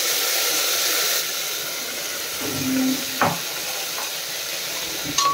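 Wet, soaked quinoa sizzling and hissing as it hits hot oil in a pressure cooker. The hiss is loudest in the first second, then eases to a steady sizzle, with a single sharp knock about three seconds in.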